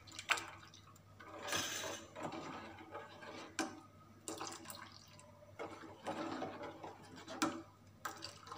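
Milk being stirred in a steel saucepan with a steel ladle, scooped up and poured back in several times: splashing and dribbling liquid with a few light clinks of ladle against pan.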